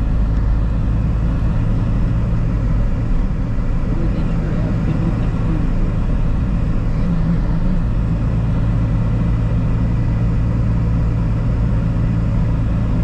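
Car cabin noise while driving: the engine and tyres give a steady low rumble.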